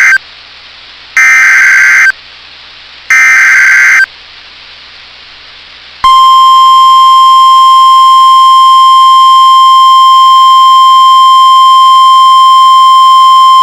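NOAA Weather Radio Emergency Alert System activation: the end of one burst of SAME digital header data, then two more one-second bursts about a second apart. About two seconds later the steady single-pitch 1050 Hz warning alert tone starts and holds. This is the alert signalling a flood warning.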